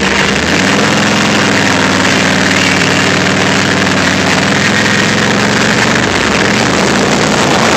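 Harley-Davidson Heritage Softail's V-twin engine running steadily, with an even low throb.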